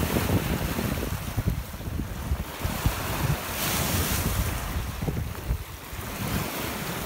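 Small lake waves washing and breaking onto a rocky, icy shore, with gusty wind rumbling on the microphone.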